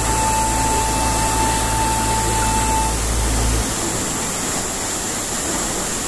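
Steady rushing roar of a tall waterfall. A held background-music note and a low bass drone sound over it and stop a little past halfway.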